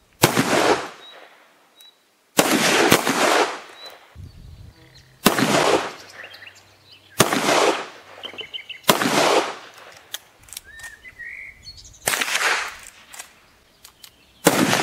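Allen & Thurber .32 calibre percussion pepperbox revolver firing a string of shots, about six, roughly two seconds apart. Each is a sharp crack with a short echo. The loads are light: 15 grains of black powder behind a round ball. Birds chirp faintly between the shots.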